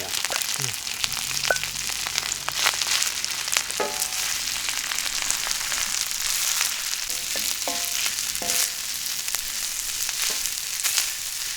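Steak frying in a hot pan, a steady sizzle thick with fine crackles of spitting fat.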